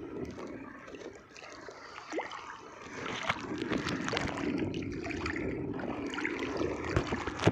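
Water splashing and trickling while a squid is handled by hand in the water, with scattered small knocks and one sharper thump near the end.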